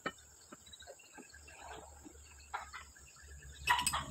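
Steady high-pitched insect drone, with scattered light clicks and knocks and a short, louder burst just before the end.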